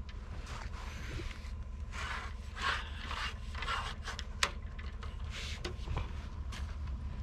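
Long-handled snow roof rake scraping and rubbing as it is handled and pulled through snow, in a few uneven rasping strokes over a steady low rumble, with a sharp click about four and a half seconds in.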